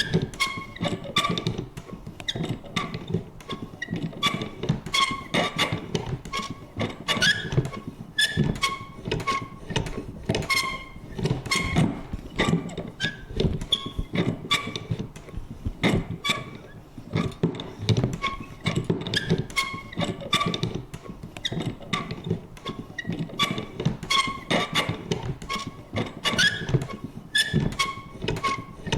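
Vintage paper punch working over and over: irregular clunks and clicks several times a second, many with a short creaking squeak from the mechanism.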